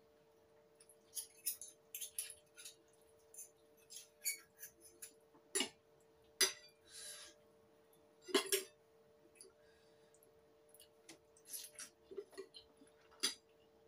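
Metal fork and spoon clinking and scraping against a ceramic bowl of noodles: scattered sharp clinks, a few of them louder, over a steady hum.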